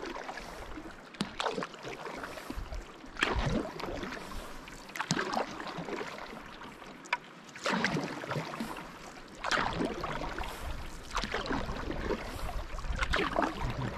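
Canoe paddle strokes on calm river water: a short splash and drip each time the paddle dips and lifts, about every two seconds.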